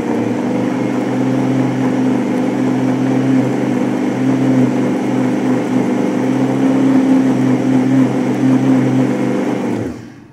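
Oster Versa 1400-watt blender motor running steadily on low speed, mixing dry rice flour and tapioca flour in the jar. It is switched off near the end and winds down.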